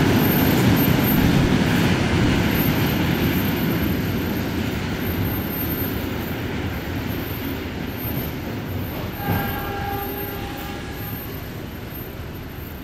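Freight train of tank wagons rolling away along the track: a dense rumble of wheels on rail that fades steadily. About nine seconds in, a train horn sounds briefly.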